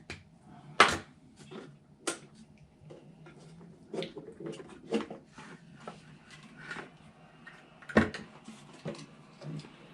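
Scattered clicks and taps of small tools and objects handled on a workbench, the sharpest about a second in and near the end, over a faint steady hum.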